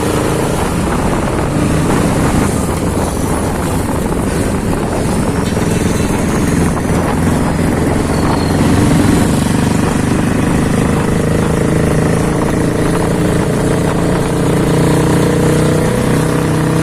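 Bajaj Pulsar 200NS single-cylinder engine running, its engine speed shifting a little up and down.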